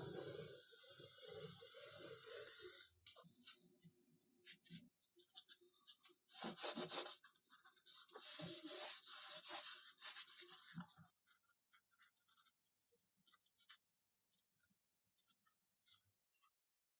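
Hand rubbing and scraping on XPS foam, in two spells of strokes: one at the start and a louder one from about six to eleven seconds in. Scattered light clicks and taps follow near the end.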